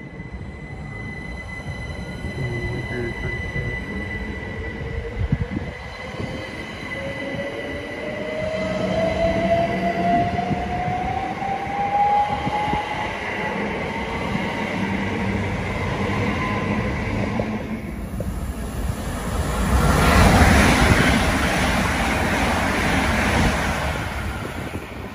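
A GWR electric passenger train pulling away, its traction drive giving a slowly rising whine over a steady high tone. About 18 s in the sound changes to a train passing at speed, a loud rush of wheels and air.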